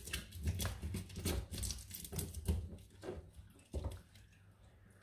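A metal spoon scraping and clicking irregularly as seafood is cleaned with it; the strokes thin out about four seconds in.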